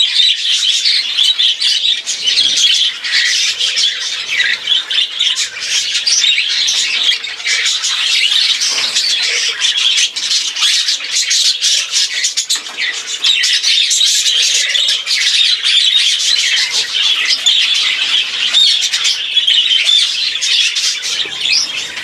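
Many budgerigars chattering together without pause, a dense, loud mix of squawks and chirps.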